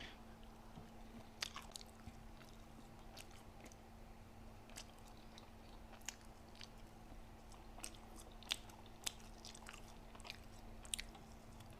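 Faint chewing with scattered small wet clicks and smacks from the mouth: a person eating McDonald's fries that have gone limp and chewy.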